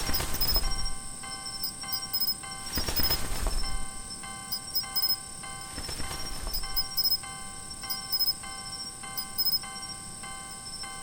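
Japanese railway level-crossing alarm bell ringing in a steady repeating ding, about two strikes a second, over a steady high insect-like whine. Three louder rushing surges come about three seconds apart.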